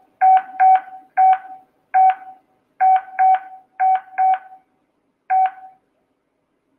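Keypad beeps from a face-recognition access-control terminal as a password is typed on its touchscreen: nine short, identical beeps at an uneven typing pace, each one confirming a key press, the last for the confirm button.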